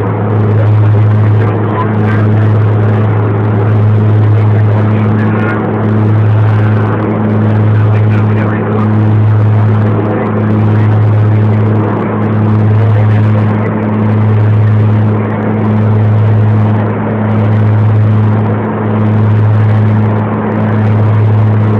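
Cabin drone of a twin-engine propeller airliner climbing after takeoff: a steady low hum that swells and fades about every second and a half, the beat of two propellers turning at slightly different speeds.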